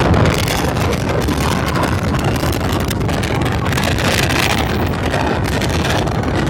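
Floodwater from heavy rain rushing past in a loud, steady, churning rush, with wind buffeting the microphone.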